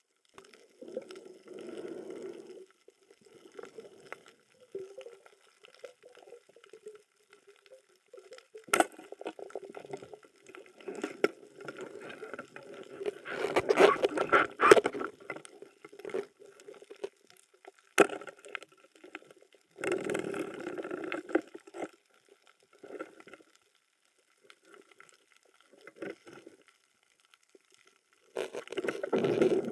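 Muffled water sloshing and gurgling heard through an underwater camera, coming in irregular surges as the diver moves, loudest about halfway through. Two sharp clicks stand out, one about a third of the way in and one past the middle.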